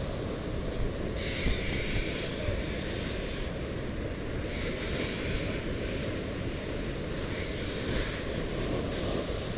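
Surf breaking and washing over rocks, the hiss of each wave surging up and fading three or four times, over a steady rumble of wind on the microphone.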